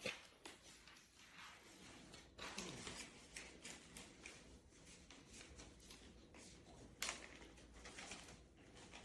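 Near silence: faint rustles and scattered clicks in a small room, with one sharper click about seven seconds in.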